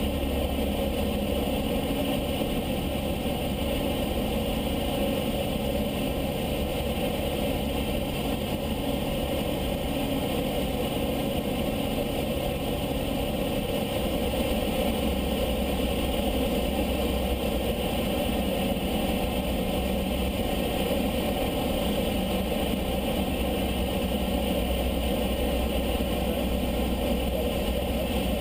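Small propeller plane's engine droning steadily, heard inside the cockpit. Its low note shifts about halfway through.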